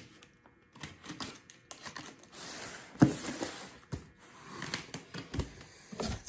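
A blade slitting the packing tape on a cardboard box: scratchy scraping with scattered clicks and a sharp knock about three seconds in. Near the end the cardboard flaps and paper inside rustle as the box is opened.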